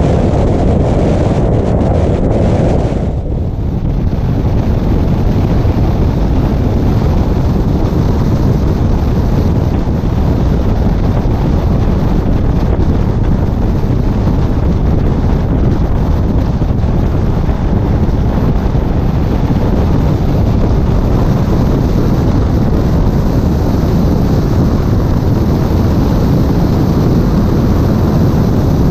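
Toyota Tacoma rally truck driving fast on a desert dirt track: steady engine and tyre noise under heavy wind on the microphone, with a brief dip in level about three seconds in.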